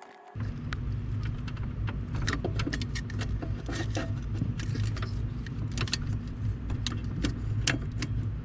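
Steady low running hum of a pickup truck's engine idling, with many short sharp clicks and a set of keys jangling over it.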